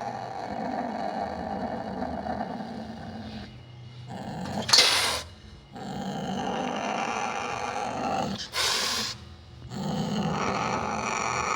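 Sumatran leopard cat growling steadily, cut twice by a loud, sharp hiss, about five and nine seconds in: a wild cat's defensive threat.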